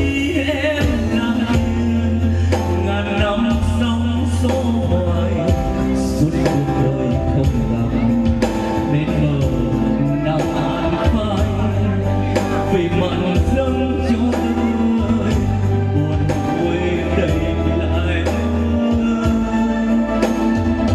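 A man singing a song over a backing track with a steady bass line.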